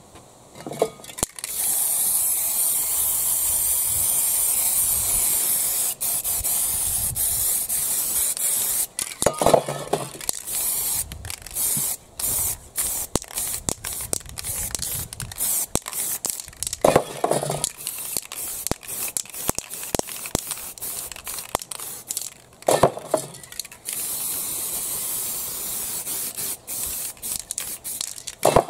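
Aerosol spray paint cans hissing onto a paper stencil, in long steady blasts and runs of short spurts, with a few brief knocks between them.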